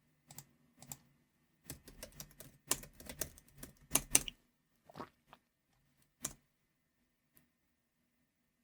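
Typing on a computer keyboard: a few single key presses, then a quick run of keystrokes about two seconds in that ends with the loudest, hardest strike around four seconds in, followed by a few scattered single presses.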